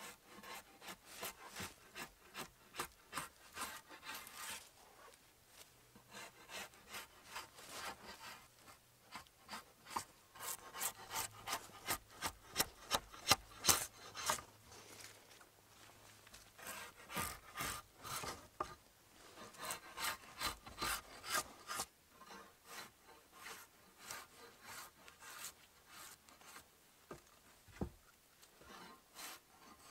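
Drawknife stripping bark from a log in quick repeated scraping strokes, in runs with short pauses between them.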